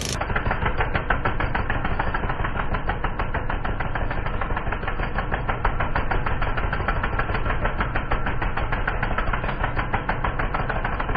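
Small fishing boat's engine running steadily under way, with a rapid, even firing beat.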